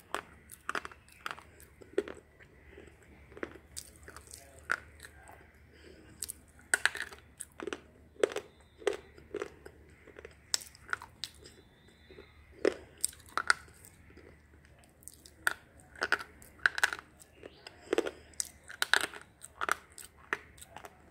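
Slate pencil being bitten and chewed: a long, irregular string of sharp crunches and snaps as the stick breaks between the teeth.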